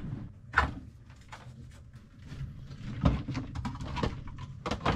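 Tools being handled on a work surface: scattered clicks and knocks of tools and plastic tool cases being picked up and set down, with a few sharper knocks about half a second in, about three seconds in and just before the end.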